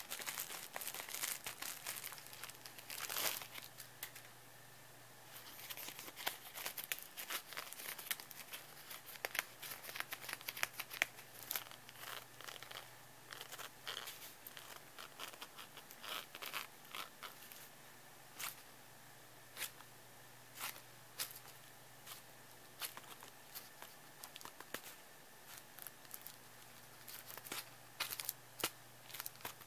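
Cellophane crinkling in irregular crackly bursts, dense and nearly continuous for the first half, then thinning to scattered single crackles.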